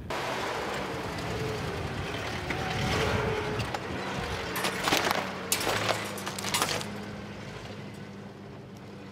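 Truck engine running steadily, with a burst of scraping and knocking from the load about halfway through.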